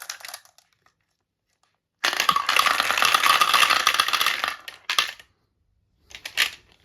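Many marbles clattering together in a dense rush for about two and a half seconds, starting about two seconds in, then a single click and a short run of clicks near the end.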